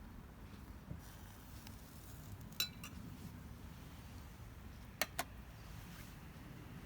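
Metal camp cookware or utensils clinking: one ringing clink about two and a half seconds in with a smaller tap just after, then two sharp clinks in quick succession about five seconds in.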